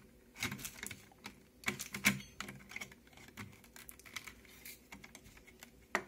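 Irregular light clicks and taps of a blue plastic drive caddy holding a Patriot Burst SSD against the metal chassis of a Dell Optiplex 3020 Micro, as it is worked into its bay. The clicks come thickest in the first couple of seconds, then thin out.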